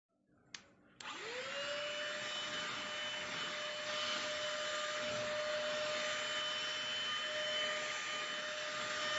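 Enolux ST6101 cordless handheld vacuum cleaner switched on after a short click: its motor spins up with a quick rising whine, then runs at a steady pitch with a hiss of rushing air.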